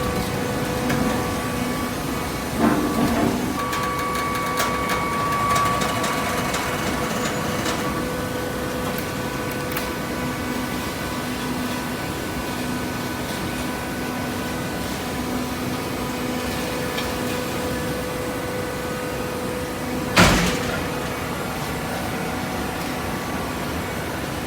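Hydraulic carton baler running: the steady hum of its motor and pump with a few held tones. A short knock comes about three seconds in, and a sharper, louder knock about twenty seconds in.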